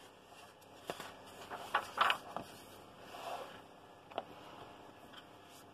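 Pages of a paperback colouring book being flipped, then the book closed and turned over on a wooden table: paper rustling and flapping, loudest about two seconds in, with a few sharp taps of the book on the table.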